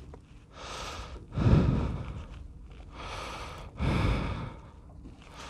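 A man breathing heavily close to the microphone: two loud breaths out about two and a half seconds apart, with quieter breaths between.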